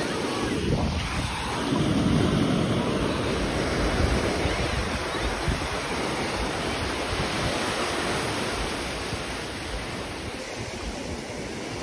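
Ocean surf breaking and washing up the beach, a little louder about two seconds in, with wind rumbling on the microphone.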